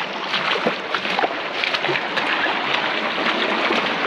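Shallow creek water running over sandstone, with splashing footsteps as hikers wade and step through it.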